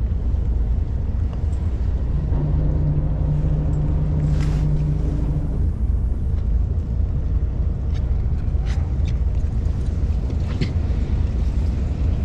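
Steady low rumble on board a fishing boat: its engine running, with wind on the microphone. A steady low hum joins about two seconds in and stops a few seconds later. A few light clicks sound near the middle and toward the end.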